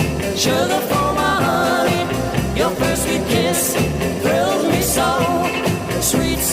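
Early-1960s-style pop song with singing over a steady beat.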